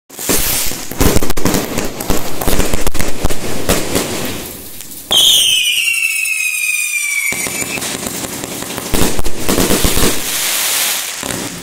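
Fireworks going off: rapid bangs and dense crackling from bursting shells. About five seconds in, a high whistle slides down in pitch for about two seconds. Then the bangs and crackle return.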